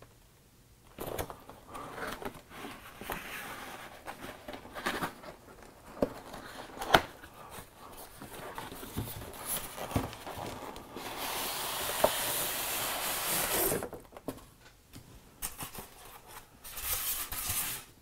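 Cardboard packaging being handled and opened: rustling, scraping and occasional knocks, with a longer sliding scrape a little past the middle. Near the end a moulded foam packing insert rubs and scrapes as it is lifted out of the box.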